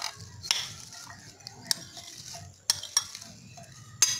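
Diced apple sliding out of a tipped glass bowl into another glass bowl, a metal spoon scraping the pieces out and clinking against the glass several times.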